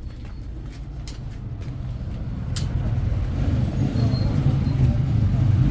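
Low, steady rumble of a road vehicle that gets louder about halfway through, with a few faint clicks.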